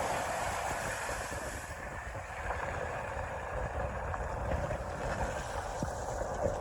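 Steady rushing noise of wind and water, with wind buffeting the microphone.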